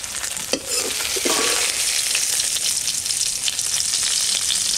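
Small prawns sizzling as they fry in hot mustard oil in a metal kadai, a steady crackling hiss. A couple of short knocks come about half a second and just over a second in.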